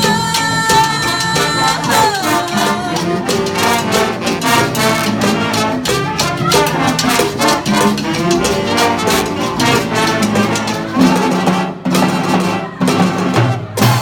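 A live jazz band with trumpets and trombones playing an instrumental passage. A held horn chord falls away about two seconds in, then the band plays busily over steady percussion, ending in a few sharp, separated hits near the end.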